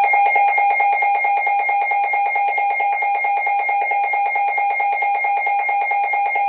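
Emergency Alert System attention signal: the loud, steady two-tone alert tone that precedes a warning message. It starts suddenly and holds without change.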